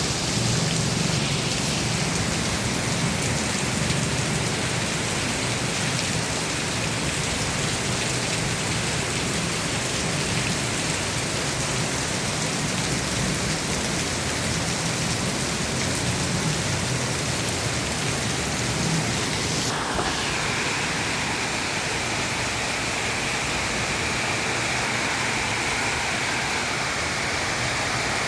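Heavy rain pouring steadily. About twenty seconds in the sound changes abruptly and a higher hiss comes in.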